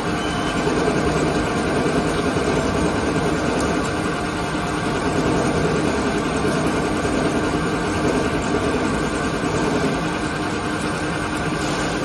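CNC flat-bed lathe running a turning cut on a bar in the chuck under flood coolant: a steady mechanical running noise with several fixed tones and a spray hiss.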